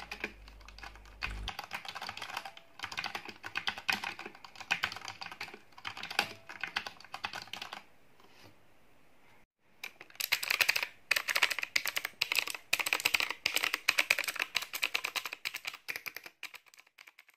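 Typing on a Redragon K630 60% mechanical keyboard with Outemu Brown tactile switches: a rapid, steady run of keystroke clacks, a pause of about two seconds near the middle, then a louder, faster burst of typing that trails off near the end.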